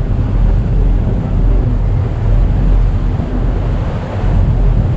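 Small passenger boat under way at speed: a steady low rumble, with wind buffeting the microphone and water rushing in the wake.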